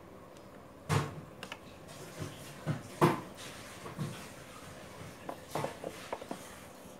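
Handling noise from a metal coaxial antenna plug and its cable being turned in the fingers: irregular clicks and knocks, the loudest about a second in and about three seconds in, with a quick cluster near the end.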